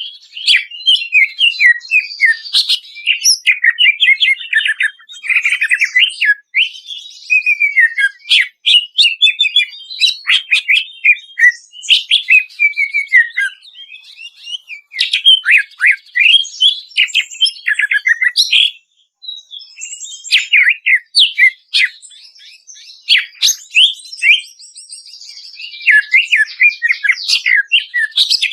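Cucak ijo (greater green leafbird) singing loudly in a fast, varied stream of chirps, trills and slurred, falling whistled notes, with a brief pause about two-thirds of the way through. It is the rich, full-repertoire song used as training audio to stir caged birds into singing.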